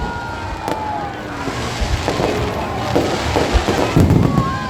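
Fireworks display going off: a run of sharp bangs and crackling bursts, heaviest near the end, with a couple of falling whistling tones.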